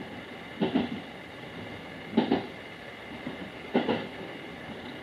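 JR West 221 series electric train running, heard from inside the train: a steady running rumble with a double clack of the wheels over rail joints three times, about every one and a half seconds.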